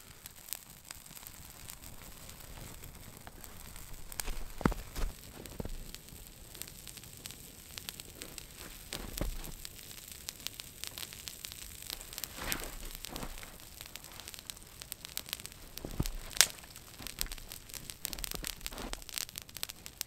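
Freshly lit campfire of birch bark and dry spruce twigs crackling as it catches, with frequent small sharp pops over a low hiss. A few louder thuds come now and then.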